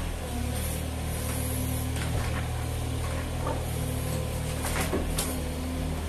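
Yanmar SV18 mini excavator's three-cylinder diesel engine running steadily while the arm and bucket work, with a few short knocks and scrapes of the bucket on rubble about two seconds in and again near the end.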